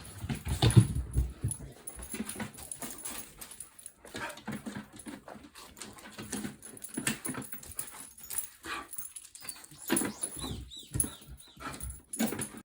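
A dog moving about close by and making small noises: a string of irregular soft clicks and rustles, with a few heavier thumps about a second in.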